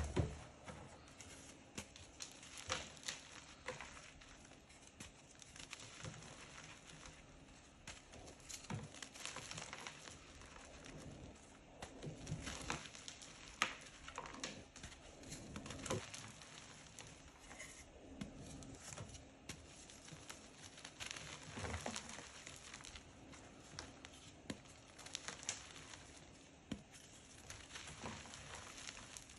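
Hands squeezing and crushing pressed blocks of dyed gym chalk: a faint, irregular crunching and crumbling, full of small crisp crackles, with loose powder pattering down.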